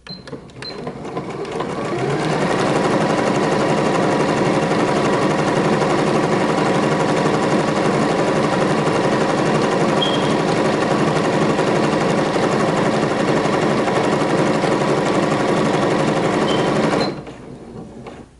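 Janome DC1018 computerized sewing machine stitching through fabric. It speeds up over the first couple of seconds, runs steadily, and stops about a second before the end.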